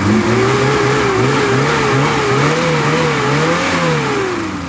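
1991 Suzuki Katana's four-cylinder carburetted engine revved by hand at the throttle linkage. The revs are held up, rising and dipping a few times, then fall back toward idle near the end. The engine runs smoothly, which the seller takes for a healthy engine.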